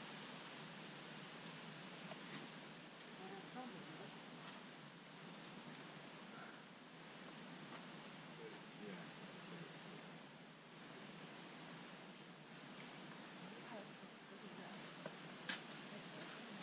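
An insect calling in a steady rhythm of high buzzes, each about a second long, swelling and then cutting off, repeating roughly every two seconds. A single sharp click near the end.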